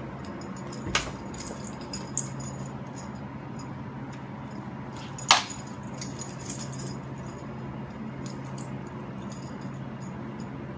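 Light metallic clinks and jingles from a Pomsky puppy's collar and leash clip as it moves about carrying a toy, the loudest clink about five seconds in. Under them runs a steady low hum.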